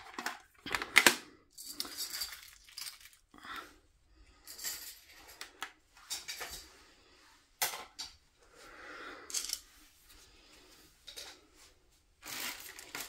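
Small plastic craft accessories being picked up and put away: scattered sharp clicks and light clatter of hard plastic, with soft rustling in between.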